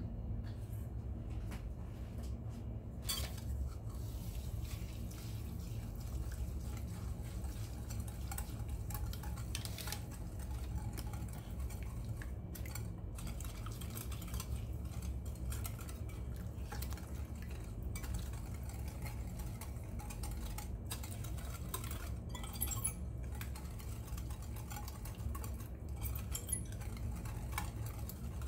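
A whisk beating wet cake batter of eggs, sugar and oil in a glass bowl, with liquid sloshing and scattered sharp clinks as it knocks against the glass, over a steady low hum.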